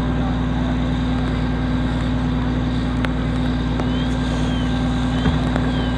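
An engine running steadily at constant speed, giving a continuous low hum, with the hiss of a fire hose stream spraying water.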